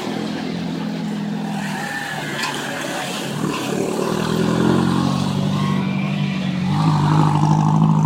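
A 4x4's engine running under way, its note rising and growing louder as the vehicle accelerates around the middle and again near the end.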